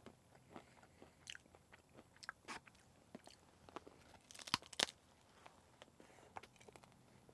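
A person chewing a Salted Nut Roll, its salted-peanut coating giving soft, scattered crunches. About four and a half seconds in come two sharper crunches close together as he bites into the bar again.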